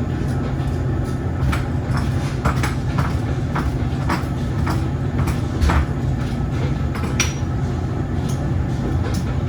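Steady low mechanical hum with scattered light clicks and taps, like tools and fittings being handled.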